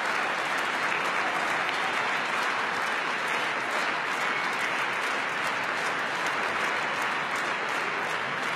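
Large audience applauding steadily in a standing ovation, many hands clapping at once in a dense, unbroken wash.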